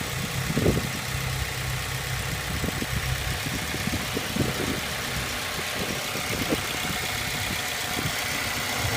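Acura RSX Type S's K20 four-cylinder engine idling steadily, with scattered, irregular knocks over the hum. The owner suspects engine knock after driving it hard on very low oil.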